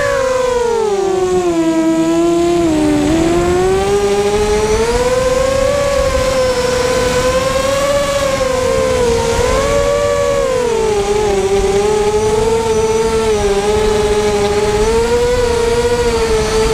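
Electric motors and propellers of a Blackout 330 FPV quadcopter in flight, a steady whine whose pitch rises and falls with the throttle, dipping in the first couple of seconds and then wavering.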